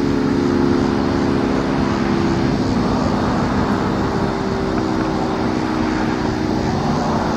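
Federal Signal 3T22 three-tone rotating outdoor warning siren sounding its steady alert chord, fading about two seconds in as the horn turns away and swelling again past the middle as it comes back round.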